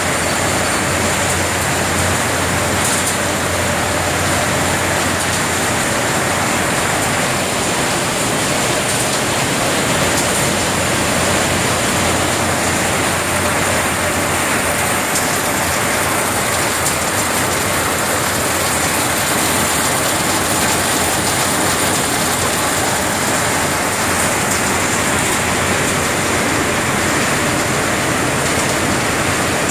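Walnut hulling line running: conveyors, motors and walnuts moving through the machinery make a loud, steady rushing clatter with no let-up.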